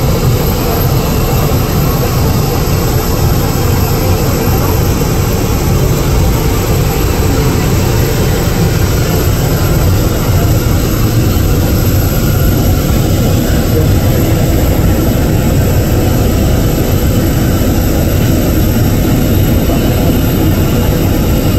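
Boeing 777's twin turbofan engines at takeoff thrust through the takeoff roll and climb-out: a loud, steady jet engine noise, heaviest in the low end.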